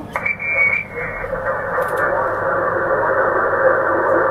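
HF transceiver in single-sideband receive on the 15-metre band: a steady hiss of band noise through the narrow SSB filter, which narrows slightly about a second in. A weak station's voice is faint and hard to copy in the noise.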